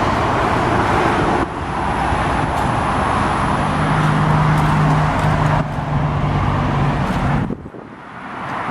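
Steady motor-vehicle noise with a low hum, dropping away sharply near the end.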